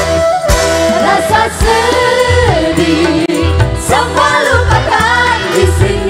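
Live band music: a bamboo flute melody finishes in the first moments, then several women sing together over a steady bass and drum beat.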